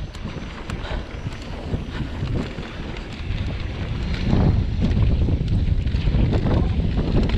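Wind rushing over the microphone as a mountain bike rolls down a dry dirt trail, with tyre rumble and frequent small knocks and rattles from the bike over bumps. It gets louder about four seconds in.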